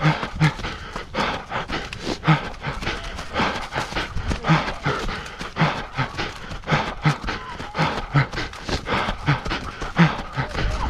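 Hard, rhythmic panting breaths with running footfalls from a runner going hard on a trail.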